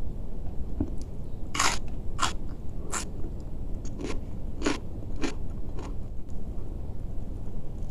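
A person chewing crisp food: about seven sharp crunches, roughly one every half second or so, between about two and six seconds in, over a steady low background hum.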